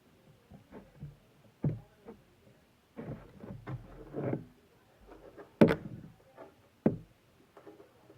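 Packaging being handled during an unboxing: scattered knocks and clicks with a patch of rustling. The sharpest knocks come about a second and a half in, near six seconds in and about seven seconds in.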